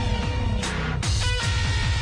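Electronic music: a held synth chord over a quick run of deep bass hits that drop in pitch, with a short noisy hit about two-thirds of a second in.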